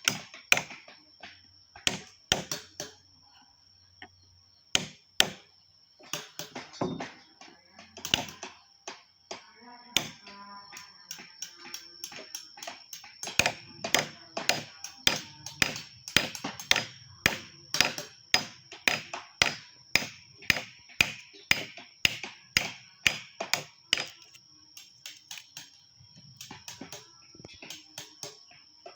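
Wood being carved with a chisel struck by a mallet: irregular sharp knocks at first, then a steady run of about two to three strikes a second through the middle, thinning again near the end. A faint steady high-pitched whine sits under the strikes throughout.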